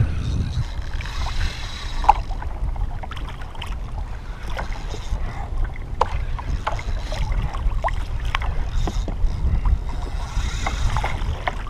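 Wind buffeting the microphone with a steady low rumble, over small irregular splashes and lapping of water against a kayak hull.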